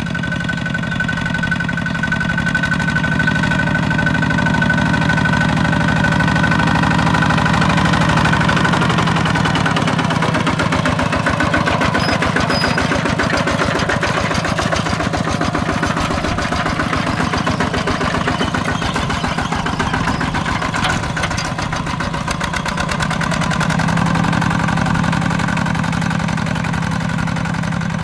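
Single-cylinder diesel engine of a two-wheel walking tractor running steadily under load while ploughing. Its even note turns rougher and choppier through the middle and settles back to steady near the end.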